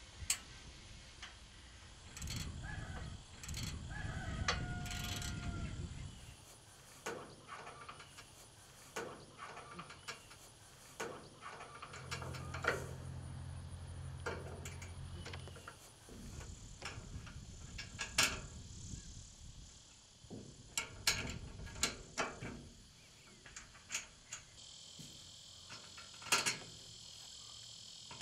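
Scattered metallic clicks and knocks as bolts and brackets are fitted to a hay feeder's red steel frame and sheet-metal panels. A low rumble of wind runs through the first few seconds, a steady low hum lasts a few seconds midway, and insects buzz near the end.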